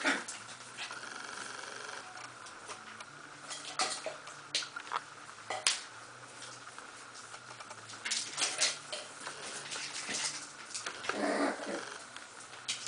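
Several 5.5-week-old puppies scampering on a tiled floor: scattered clicks and taps of small claws and paws, with a short puppy vocalisation near the end.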